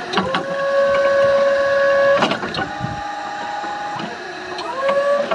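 Forklift hydraulic pump whining steadily as the mast raises the forks, with a knock from the mast or carriage about two seconds in. The whine drops to a lower pitch after the knock and climbs again near the end.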